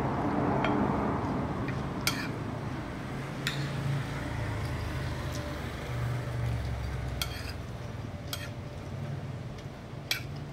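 Metal spoon clinking and scraping against a plate about six times, spread out over the few seconds, between mouthfuls of rice and beans. Close-up chewing runs underneath.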